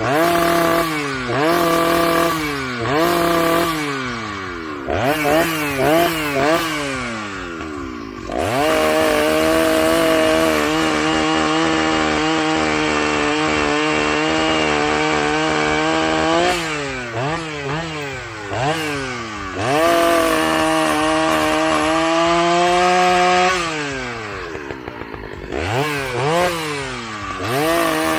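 Husqvarna 2100CD two-stroke chainsaw bucking wood. Its engine is blipped up and down in quick repeated revs, then held at high, steady speed for several seconds at a time, twice.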